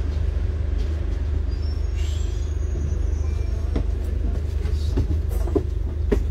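Double-decker bus engine rumbling steadily, heard from inside the cabin on the upper deck. A few light knocks and rattles come in the second half.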